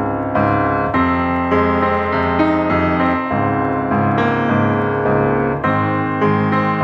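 Background piano music, chords changing about every half second to a second.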